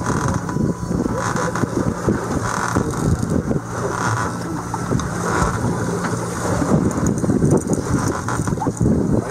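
Wind buffeting the microphone in uneven gusts over the steady low hum of a boat's Suzuki outboard engine idling.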